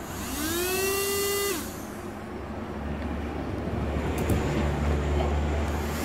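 Small toy DC motor spinning a saw blade made from a soda bottle cap: a whine that rises in pitch as it spins up, runs for about a second, then winds down about a second and a half in. A steady low hum follows for the rest of the time.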